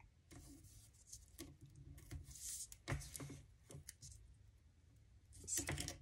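Faint rustling and sliding of cardstock handled and shifted on a tabletop, in several short bursts with a few light taps.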